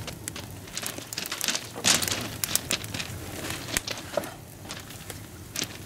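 Open log bonfire crackling and popping, with many sharp snaps and a louder, denser burst of crackling about two seconds in.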